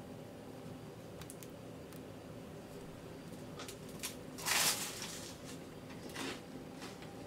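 A bite into toast topped with fried egg: one loud crunch about four and a half seconds in, then a smaller crunch and a few soft clicks of chewing, over a faint steady hum.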